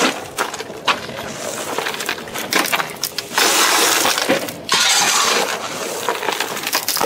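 Gravel shoveled and thrown into a drain trench, clattering down in several noisy spells with a few sharp clicks.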